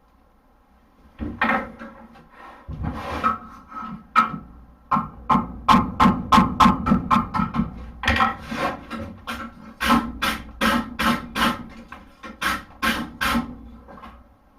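Hand hammer striking hot horseshoe steel on an anvil while forging a hoof pick: a run of ringing blows at about three a second, starting about a second in, with short pauses between runs.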